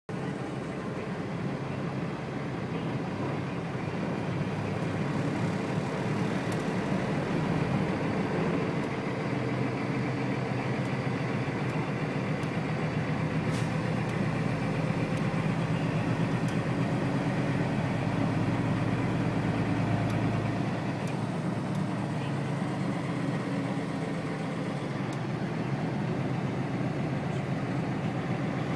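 An engine running steadily, a continuous low rumble.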